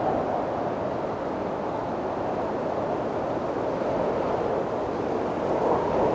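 Steady wind blowing in a continuous rushing hiss, swelling and easing slowly.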